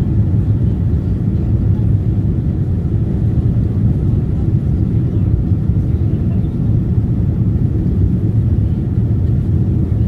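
Steady low rumble of a passenger airliner's cabin in flight: engine and airflow noise.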